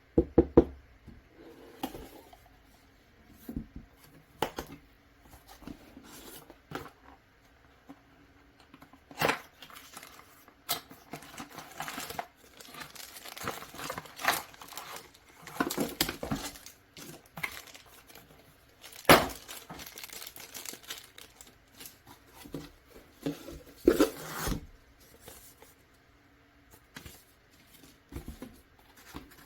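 Unpacking a boxed keyboard: scattered sharp knocks and clicks of the box and its contents being handled, with stretches of rustling and tearing of packaging.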